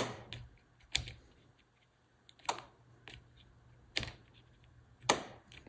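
N-scale snap-switch turnout actuators firing from a capacitive-discharge circuit as a push-button controller is pressed, giving about six sharp clicks spread unevenly a second or so apart. With the third capacitor back in, the turnouts are throwing reliably each time.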